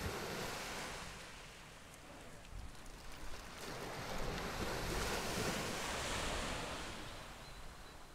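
Sea waves washing on a shore, a rushing hiss that swells to a peak in the middle and then eases away.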